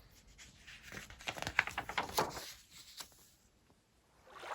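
Stomping footsteps sound effect: a quick run of rustling, crackling steps that starts about a second in and stops about three seconds in.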